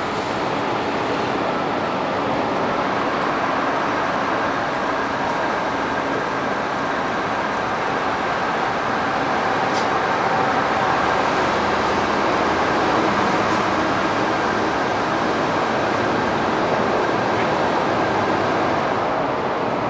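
Steady airport apron noise: a continuous rushing hum with a few faint steady whining tones, getting slightly louder about halfway through.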